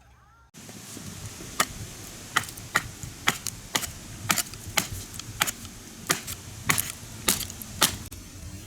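A series of sharp knocks, roughly two a second and unevenly spaced, over a steady hiss.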